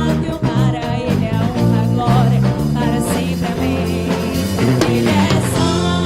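A worship band playing between sung lines of the song. Bass and guitar carry the music, with cymbal crashes about three seconds in and again near the end.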